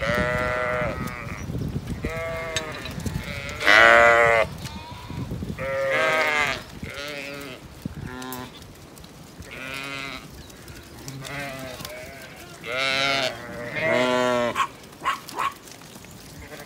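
Zwartbles ewes and lambs bleating, about ten wavering calls one after another, some high and some deeper, the loudest about four seconds in: the flock crowding in at feeding time.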